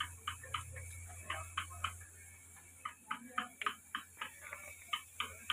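An irregular series of sharp ticks or taps, about two to four a second, over a low hum that fades out about two seconds in.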